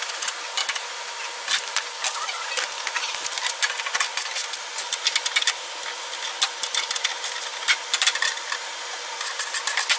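Socket ratchet clicking in short runs of rapid clicks as the bolts of an air-intake mounting plate are loosened.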